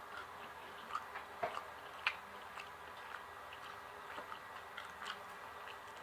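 A person chewing food with the mouth close to the microphone: quiet, irregular wet clicks and smacks.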